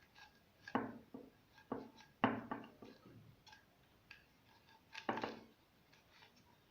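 Desk lamp parts being handled and fitted together by hand: a few separate light knocks and clicks, the clearest about a second in, past two seconds and around five seconds.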